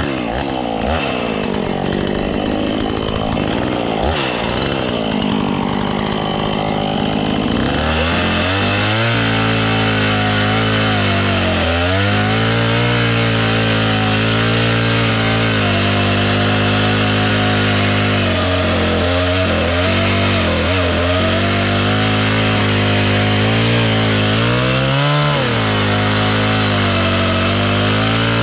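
Husqvarna two-stroke chainsaw running in a dead elm, its engine speed wavering unevenly for the first several seconds, then holding a steady pitch with a few brief dips as it pulls through the cut. The chain is dull.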